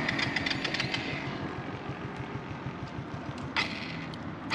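Suzuki GN125's single-cylinder four-stroke engine idling with the motorcycle standing still, a fast even pulsing. A fast high ticking fades out about a second in, and there is a sharp click near the end.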